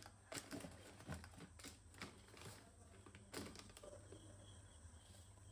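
Faint, scattered rustling and light clicks of plastic snack packets and a cardboard food box being handled and lifted.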